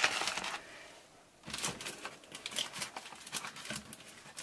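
Metallic bubble mailer crinkling and crackling as it is handled and pressed flat: a dense run of crackles at first, a short lull about a second in, then scattered light crackles and taps.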